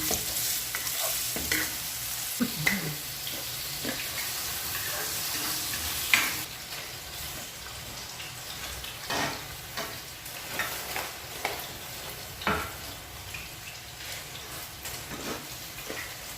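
Chorizo de Bilbao sizzling in hot oil in a pan as it is stirred, with a spatula scraping and knocking against the pan now and then. The sizzle drops quieter about six seconds in.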